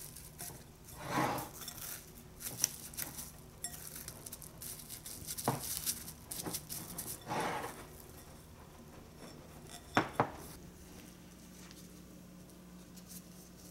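Cling film rustling over a glass mixing bowl as the bowl is handled on a tabletop, with scattered light clicks and knocks of glass and utensils. Two short swishes come about a second in and around seven seconds, and two sharp clicks come close together at about ten seconds.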